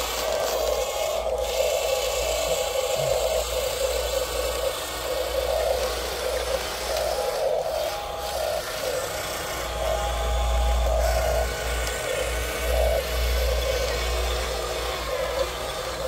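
Small electric gear motors of radio-controlled toy construction models, a Huina excavator and a bulldozer, whirring as the models move. The whine rises and falls in short spells as the motors start and stop.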